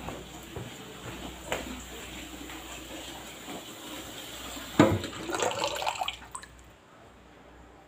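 Water splashing and sloshing in a plastic pitcher in a stainless steel kitchen sink, set off by a sharp knock about five seconds in. A lighter knock comes earlier, over a low steady hiss.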